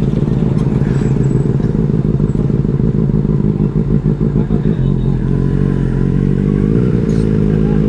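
Benelli 600i motorcycle's inline-four engine running while the bike is ridden. The note wavers about four seconds in, then rises and holds steady at a higher pitch near the end.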